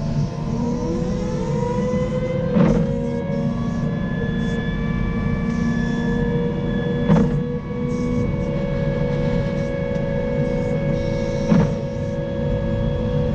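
Caterpillar 926M wheel loader running under load while pushing a snow plow: a steady engine drone with a whine that climbs in pitch about a second in, then holds. Three short sharp clunks break through, near the start, midway and near the end.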